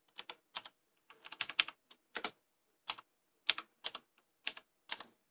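Someone typing a short message on a computer keyboard: separate key clicks at an uneven pace, a quick run of several strokes about a second in, then single keystrokes spaced out.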